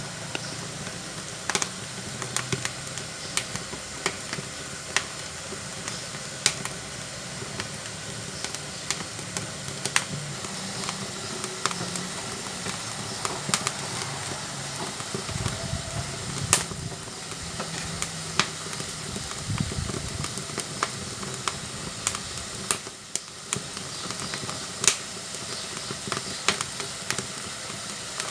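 Firewood burning in a wood-fired cook stove, crackling with irregular sharp pops over a steady hiss and a low rumble.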